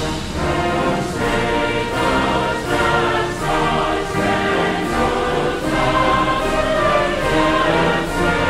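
Background music: a choir singing over an orchestra, with a steady beat.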